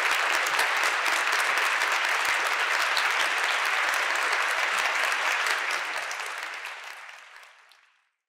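Audience applauding, a steady clatter of many hands clapping that fades away near the end.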